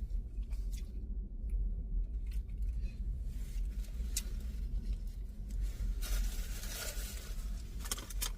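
Rustling and light scraping of handled food packaging, with a few sharp clicks and a longer rustle about six seconds in, over a steady low rumble.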